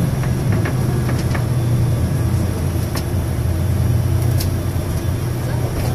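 Bus engine running steadily, a low drone heard from inside the passenger cabin, with a few light clicks.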